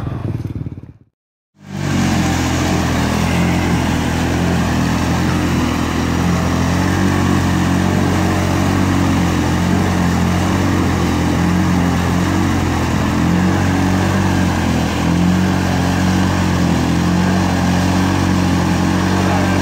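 Polaris ACE single-seat off-road vehicle's engine running at a steady speed, without revving, while the machine sits bogged in deep mud. The sound cuts out completely for about half a second about a second in.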